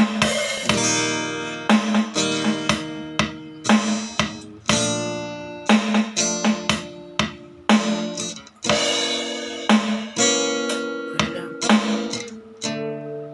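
Acoustic guitar strummed in chords, unaccompanied, as a song's intro; near the end the strumming stops and the last chord is left ringing.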